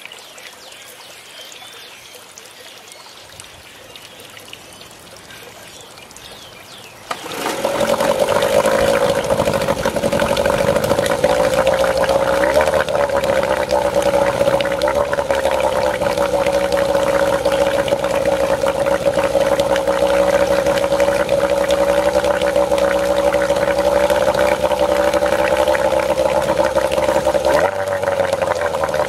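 1991 Evinrude 3 hp twin two-stroke outboard comes in suddenly about seven seconds in and then runs steadily at a fast idle, its propeller churning and splashing the water in a test tub. The motor is running again after ten years in storage.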